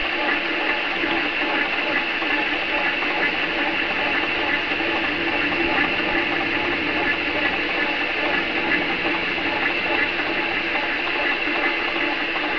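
Metal lathe running steadily with its chuck spinning, as a steel socket is turned down into a bushing.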